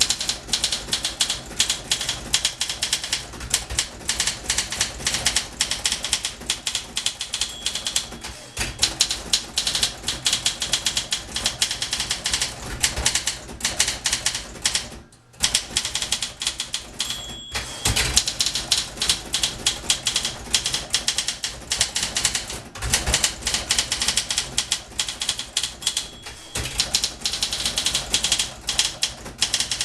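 1961 Olympia SM4 portable typewriter being typed on at a quick, steady pace, with a dense run of key and typebar clacks. There is a short break about halfway. The margin bell dings now and then, followed by a heavier knock as the carriage is returned.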